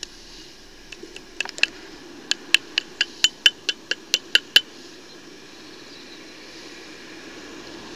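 Rusty iron magnet-fishing finds knocked together: a run of about fifteen sharp, ringing metallic taps, scattered at first and then steady at about four a second, stopping a little over halfway through.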